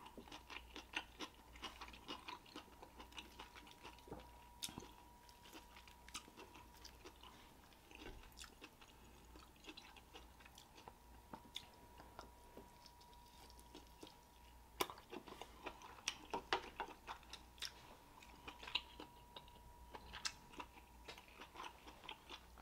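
Faint, close-miked chewing of king crab meat, with many small wet mouth clicks. A sharper click comes about fifteen seconds in.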